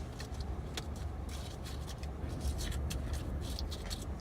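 A spoon scraping and picking at a cup of shave ice: a run of short scrapes and clicks, thickest in the middle, over a low steady rumble.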